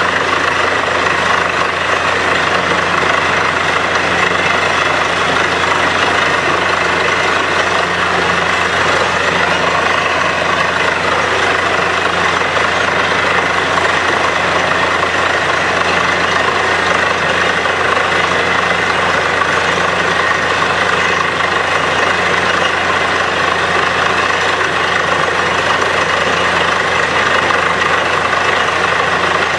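Truck-mounted borewell drilling rig running steadily while drilling, with a continuous rush of air and muddy water blowing cuttings out of the borehole over a low steady engine hum.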